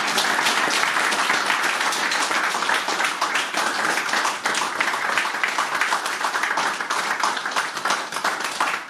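A small audience applauding by hand in a small room, many people clapping at once, steady and loud throughout.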